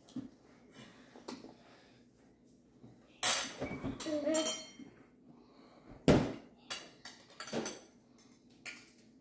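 Cutlery and dishes knocking and clinking on a stone countertop: scattered light clicks, with one sharper knock about six seconds in.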